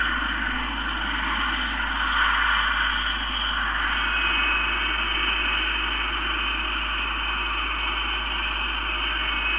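BAC 221 slender-delta research aircraft's Rolls-Royce Avon turbojet running as the aircraft taxis on the runway: a steady rushing noise, with a thin whine that comes in about four seconds in.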